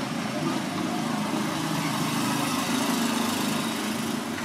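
A motor running steadily: an even, unbroken hum with a constant tone in it.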